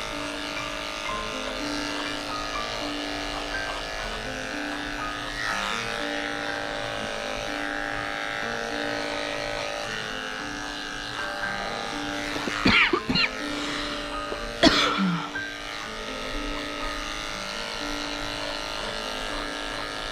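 Corded electric pet clippers running steadily as they shave a dog's badly matted coat, under background music with a stepping melody. Two short, loud, sharp sounds break in near the middle, about two seconds apart.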